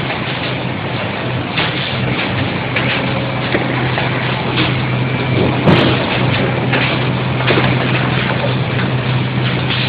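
Automatic case making machine running: a steady mechanical drone with a constant low hum and scattered clatter, and one sharp knock about six seconds in.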